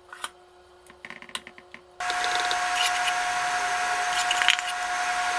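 A spoon scrapes and taps batter from a stainless steel mixing bowl into a metal muffin tin, making a few light clicks and scrapes. About two seconds in, a steady hiss with a constant hum comes up suddenly and carries on under the clicks.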